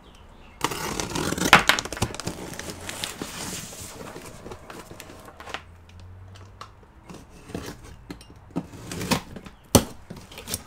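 Cardboard shipping box being opened by hand: tape slit and cardboard flaps scraping and crackling, with a couple of sharp knocks, about a second and a half in and near the end.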